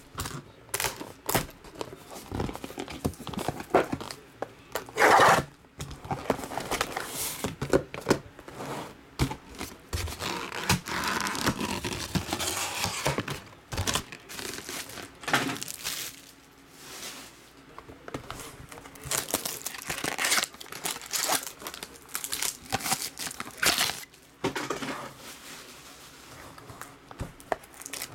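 Plastic shrink wrap on sealed trading card boxes crinkling and tearing as it is handled and pulled off, with irregular rustles and a few light knocks of the cardboard boxes on the table.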